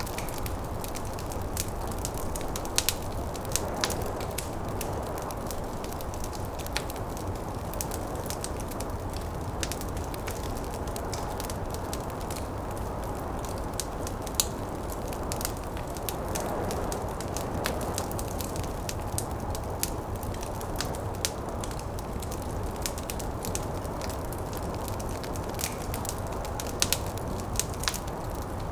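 Wood fire crackling with frequent irregular sharp pops, over a steady low rush of snowstorm wind that swells a little now and then.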